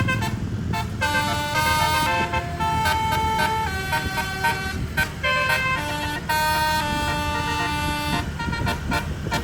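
Multi-trumpet bus telolet horn playing a melody of stepped, held notes, several pitches sounding together, over a low engine rumble.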